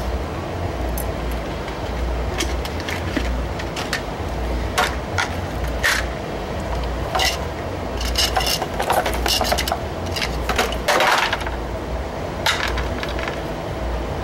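Irregular metallic clinks and clatters as welder cables and their metal electrode holder and ground clamp are handled and dragged on a concrete floor, busiest in the second half, over a steady low rumble.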